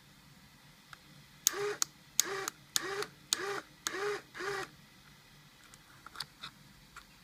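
Small electric motor in an Arduino-driven Polaroid camera converted for Instax Wide film, whirring in six short pulses about half a second apart. Each pulse starts with a click and rises then falls in pitch. A few faint clicks follow near the end.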